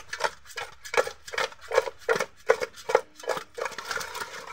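Raw fish pieces being mixed with salt and turmeric in a metal pot, a metal spatula knocking and scraping against the pot in short repeated strokes, about two or three a second.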